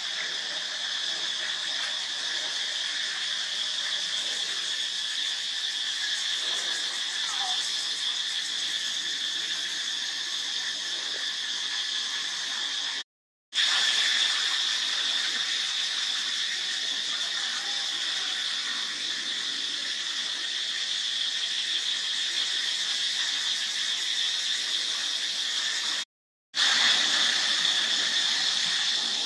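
Steady high-pitched insect chorus droning without a break. It cuts out briefly twice.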